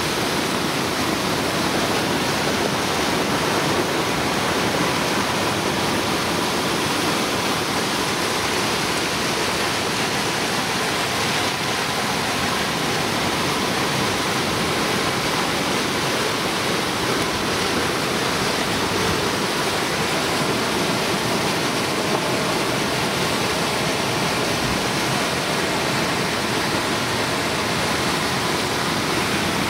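Creek in flood after heavy rain: fast muddy floodwater rushing and churning through an eroded gully, a steady, unbroken rush of water.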